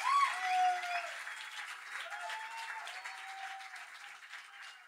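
Audience applauding with a few shouted cheers over the clapping, fading out toward the end.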